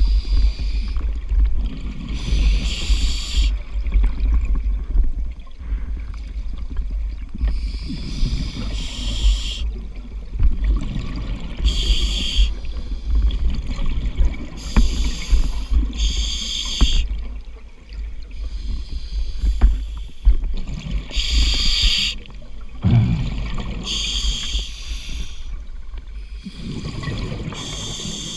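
Scuba diver breathing on a regulator, heard underwater from a housed GoPro: bursts of exhaled bubbles hiss past every few seconds over a constant low rumble.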